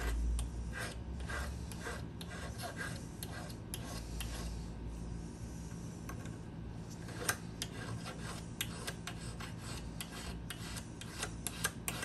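Hand file rasping in quick repeated strokes across a flat steel key blank clamped in a vise, cutting a bitting notch for an antique lever-lock key. A few sharper clicks of the file near the end, over a steady low hum.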